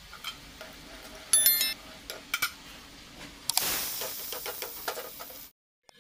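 Hot oil tempering (tadka) of dried red chillies sizzling in a small iron pan, with a few clicks of a utensil against the pan. About three and a half seconds in, the hissing grows stronger as the hot tempering hits the spinach curry. A brief bright chime about a second and a half in is the loudest sound.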